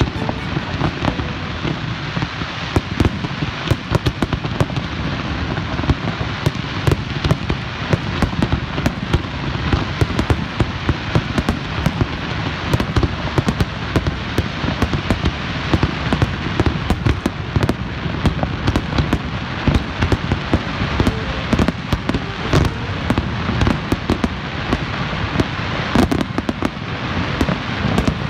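Fireworks display: a continuous run of bangs in quick succession over a steady crackle, without a pause.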